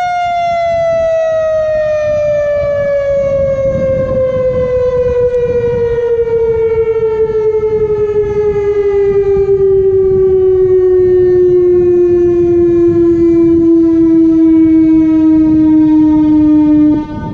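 Whelen WPS 4004 electronic outdoor warning siren winding down at the end of its steady alert tone: the pitch falls slowly and evenly for about seventeen seconds, then cuts off abruptly near the end.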